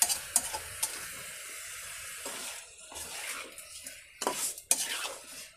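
Chicken in green masala sizzling in a hot metal pan. In the second half a spatula stirs it, scraping against the pan a few times.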